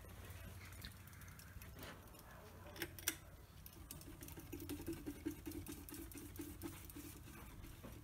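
Kenmore ceiling fan running with a faint low motor hum. Two sharp clicks come about three seconds in, then a soft rhythmic rubbing repeats several times a second as a hand brushes and slows the spinning blades.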